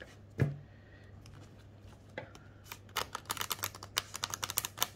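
Matte-finish Wisdom of the Divine Feminine oracle cards being shuffled by hand on a cloth-covered table: a thump about half a second in, then from about three seconds a rapid run of soft clicks as the card edges flick off the fingers and fall together.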